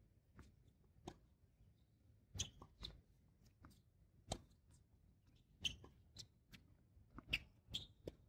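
Tennis ball being struck by rackets and bouncing on a hard court during a rally: a series of sharp, irregular pops spaced about half a second to a second and a half apart.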